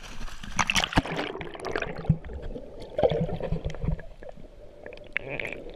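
Water sloshing and gurgling around a swimmer, with irregular small splashes and clicks.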